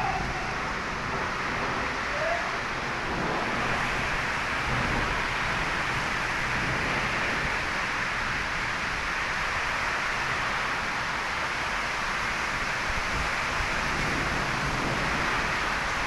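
Heavy rain falling steadily: a dense, even hiss that grows fuller about three or four seconds in.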